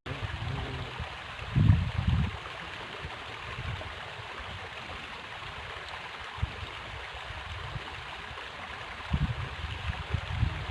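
River water flowing steadily, with two brief low rumbles, one about two seconds in and one near the end.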